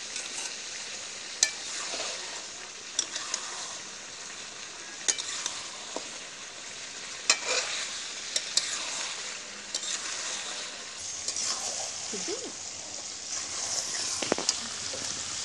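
Mutton and potato curry sizzling in a metal kadai as a spatula stirs and scrapes through it, with sharp clinks of the spatula against the pan every second or two.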